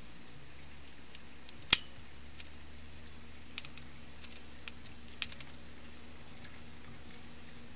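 Speargun trigger mechanism clicking as its plastic trigger and steel sear are worked by hand: one sharp snap about two seconds in, then a few lighter clicks.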